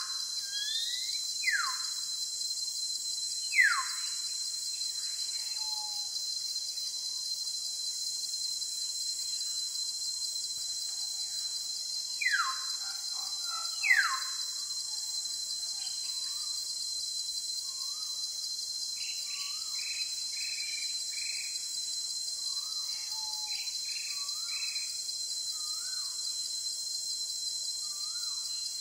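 Outdoor ambience: a steady high insect drone with birds calling over it, a few sharp falling whistles in the first half and a run of short chirps in the second half.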